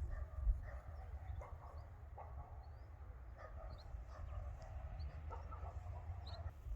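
A few short animal calls at irregular intervals, among small high bird chirps, over a low rumble of wind on the microphone.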